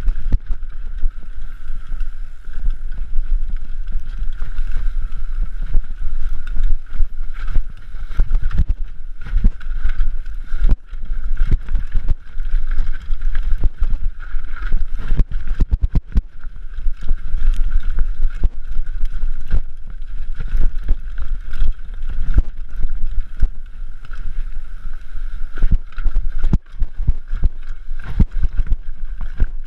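Mountain bike riding downhill at speed, with wind buffeting the microphone and constant irregular knocks and rattles from the bike, over a steady high whir.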